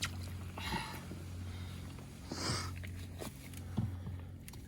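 A steady low engine hum runs underneath two short rustling, squelching noises, about a second in and halfway through, as fish bait is handled, with a couple of faint knocks.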